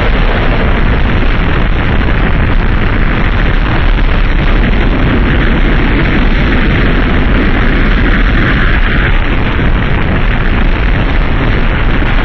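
Loud, steady wall of distorted rumbling noise with a heavy low end and no clear pitch or beat: a harsh noise soundtrack.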